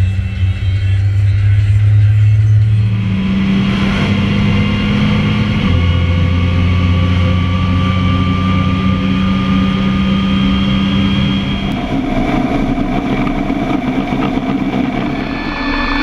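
Tractor engine and drivetrain running at road speed while towing a round bale chaser, with a whine that slowly rises in pitch through the middle. The sound shifts abruptly a few times.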